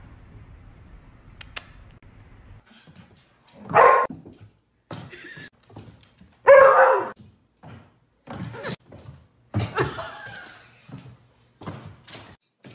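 A dog barking a few times, in separate loud calls, mixed with thuds and knocks.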